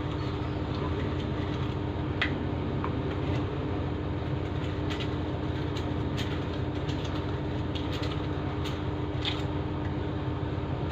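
Scattered light clicks and rattles from a small hand-held garlic chopper being worked to crush garlic cloves, over a steady low hum and noise in the background.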